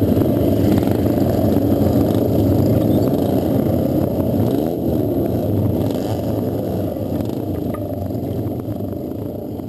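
1926 Excelsior Super X V-twin motorcycle engine running at a steady idle close by, a dense low pulsing sound that gradually gets quieter over the second half.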